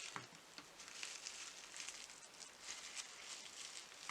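Faint rustling and scraping with small clicks: the plastic body shell of an H0 model locomotive and its decoder wires being handled and pressed together, with the shell not closing properly.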